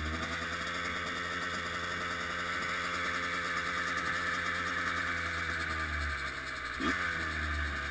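Kawasaki KX100 two-stroke dirt-bike engine idling steadily, with a quick throttle blip just before the end.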